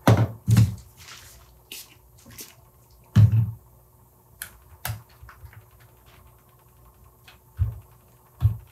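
Handling noise at a workbench: several dull knocks, two right at the start, one about three seconds in and two near the end, with lighter clicks between them as small parts and tools are picked up and set down.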